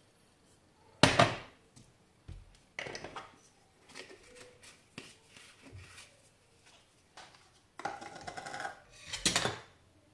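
A spoon knocking and scraping against a bowl as dry cinnamon, cocoa and brown sugar are mixed together. It comes in a few separate clattery bursts, the loudest about a second in and more near the end.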